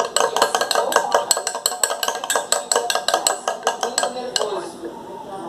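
A spoon stirring egg white and dish detergent in a bowl, clinking against its side about five times a second. The clinking thins out near the end.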